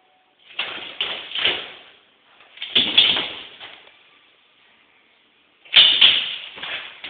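A large glass window pane rattling under quick knocks and bangs, in three bursts: about a second in, around three seconds, and near the end, when a rottweiler's paw strikes the glass.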